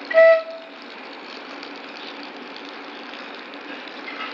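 A short, loud horn blast from a CAF electric train right at the start, then the steady hum of the train as it begins to pull out of the station.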